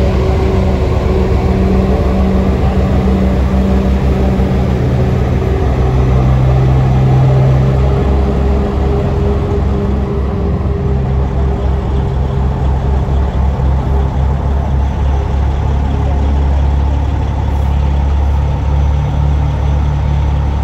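Semi-truck diesel engine running with a low, steady, pulsing rumble as a long-nose conventional tractor pulling a refrigerated trailer rolls slowly past, swelling slightly about six to eight seconds in.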